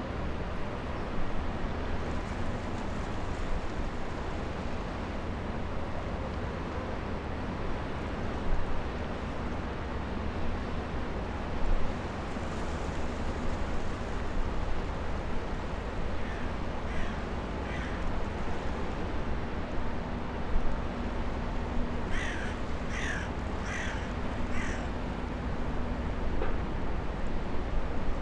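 Steady low rumble of a large container ship passing close by, with wind and water and a faint steady hum. A bird calls twice about halfway through, then four times in quick succession near the end.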